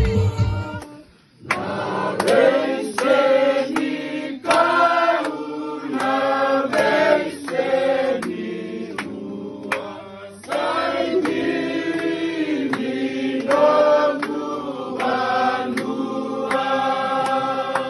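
A group of Fijian voices singing together in harmony, with a sharp beat about twice a second. The singing starts about a second and a half in, just after a louder recorded song cuts off.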